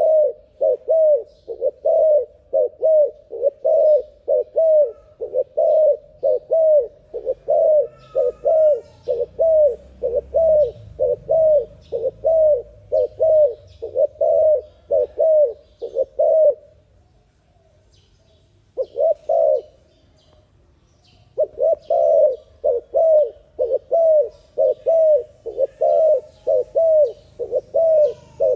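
A dove cooing in a fast, even string of short notes, about two or three a second, each dipping slightly in pitch. It breaks off for a few seconds past the middle, gives a brief pair of notes, then resumes the rapid series.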